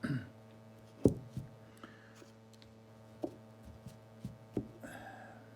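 A few light knocks and clicks of small metal parts being handled and set down, the loudest about a second in, over a low steady hum.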